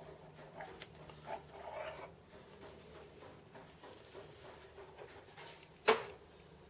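Quiet workshop handling sounds: soft rustles and light taps as tools and bar stock are moved about, with one sharp clack about six seconds in.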